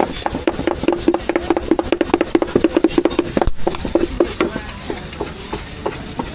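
Cleaver hand-chopping pork on a chopping board: rapid strikes, about six or seven a second, for the first three and a half seconds, then slower, scattered strikes.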